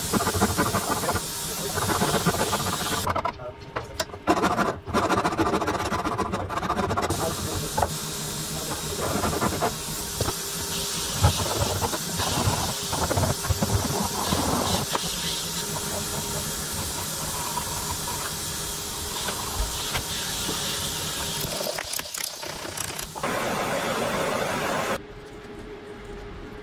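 Large steel hand file rasping in repeated back-and-forth strokes across a wooden knife-handle block clamped in a bench vise. It goes quieter near the end.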